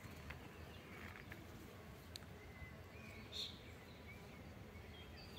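Faint birdsong: a few scattered short chirps, mostly in the second half, over a soft low outdoor rumble.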